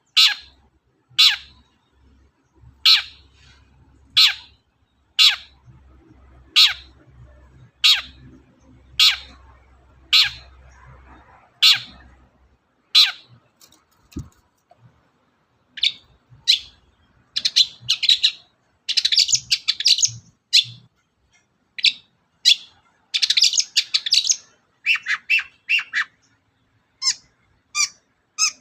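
Long-tailed shrike (cendet) calling: a run of harsh, downward-sweeping calls about one every second and a half, then faster, scratchy chattering song in dense bursts through the second half.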